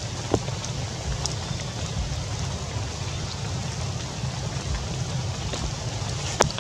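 Steady rain falling on tree leaves, with scattered drips and two sharper taps, one at the start and one near the end, over a low rumble.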